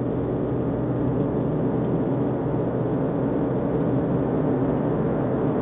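Steady road and engine noise heard inside a car's cabin while cruising along a highway, an even rumble with a faint hum and no sudden changes.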